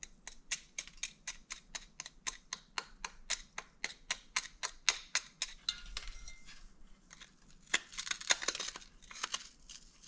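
Flat-head screwdriver scraping and picking crusted crud out of a diesel heater's metal burn chamber: a quick run of sharp clicks, about four or five a second, then slower, rougher scrapes in the second half.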